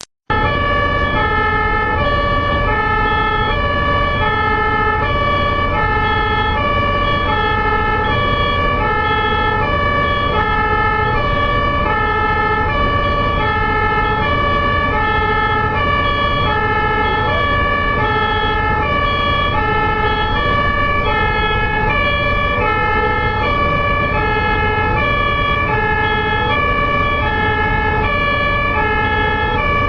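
German ambulance's two-tone siren (Martinshorn) alternating evenly between a high and a low note, each held about two-thirds of a second, over a low rumble of traffic.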